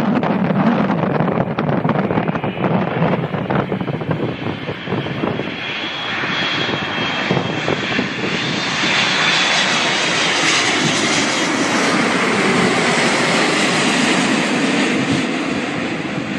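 Wind buffeting the microphone, then an airliner's jet engines growing louder as it passes close by. A high whine comes in about six seconds in, and the engine noise peaks in the second half before starting to fade.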